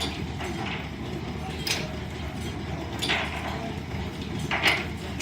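Line-shaft driven wood lathe running with a steady low rumble from the shafting and belts, while a turning tool cuts the spinning wood in short scraping bursts, about six of them, the loudest near the end.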